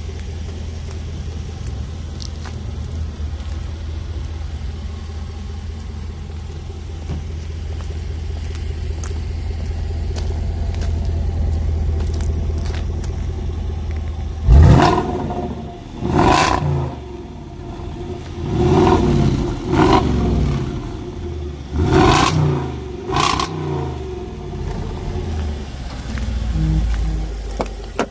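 Jaguar F-PACE SVR's supercharged 5.0-litre V8 idling with a steady low rumble, then revved through its quad-tip exhaust about six times from halfway through, each rev rising sharply and falling back to idle.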